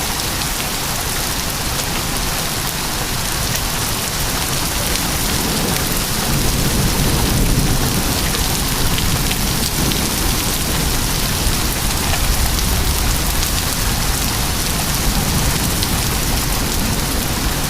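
Heavy rain falling with pea-size hail: a steady hiss with scattered sharp ticks of hailstones. A low rumble swells a little louder from about six seconds in.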